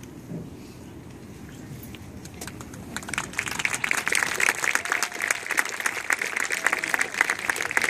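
Crowd in the stadium stands applauding, the clapping swelling up loud about three seconds in after a low murmur.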